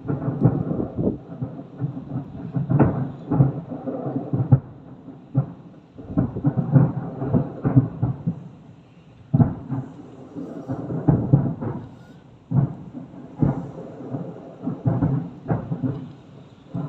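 Fireworks display: aerial shells bursting in many loud bangs in quick, irregular succession, with a low rumble between them and two short lulls partway through.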